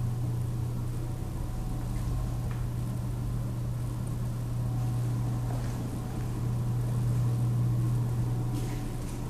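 A machine running with a steady low hum, along with a few faint clicks.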